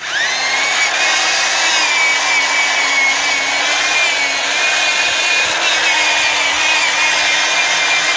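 Electric drill spinning a foam polishing pad, buffing sealant onto a plastic headlight lens. It spins up at the start, then runs steadily at high speed, its whine wavering slightly as the load on the pad changes.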